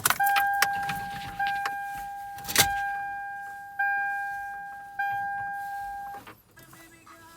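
A vehicle's dashboard warning chime ringing five times, one decaying ding about every 1.2 seconds, with a few sharp clicks around it, the loudest about two and a half seconds in. No engine is heard starting.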